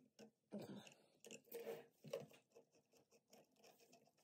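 Faint clicks and scrapes of metal parts being handled: the steel rods and lead screw of a CNC Z-axis assembly knocking and sliding against its carriage as they are fitted by hand.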